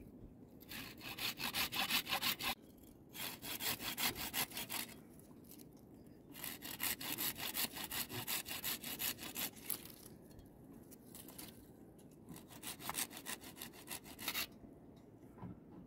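Handsaw cutting through a thin wooden branch, rapid back-and-forth rasping strokes in four spells with short pauses between them.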